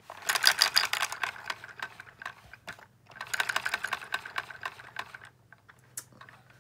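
Homemade LEGO vacuum engine running fast, its plastic parts clattering in a rapid stream of clicks. The clatter comes in two spells of about two seconds each, with a short break between, and thins to a few scattered clicks near the end.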